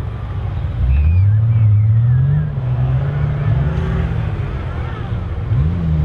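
Nissan Patrol GR's engine revving hard under load as it climbs through soft sand. The pitch rises steadily for over a second, drops back, holds, then dips and climbs again near the end.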